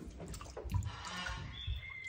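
Water splashing and dripping in a shallow paddling pool as small monkeys move about in it, with a few soft thumps and a short high peep near the end.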